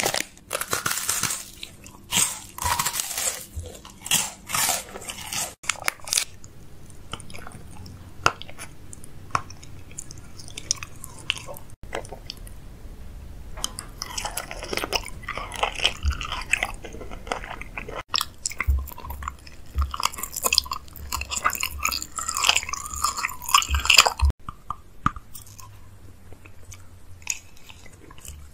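Close-miked ASMR eating sounds: a person biting, crunching and chewing candy, with sharp crackling near the start as a candy packet is handled.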